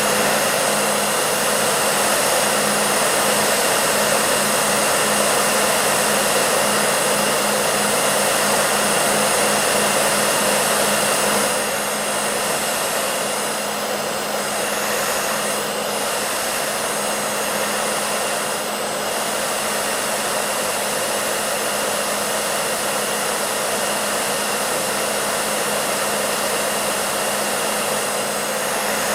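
Hair dryer running steadily: a constant rush of air with a low hum, slightly quieter from about twelve seconds in.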